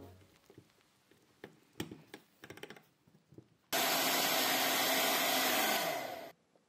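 Remington hair dryer running steadily for about two and a half seconds, then switched off, its motor tone dropping as it stops. Before it, a few light plastic clicks and taps from keycaps being handled.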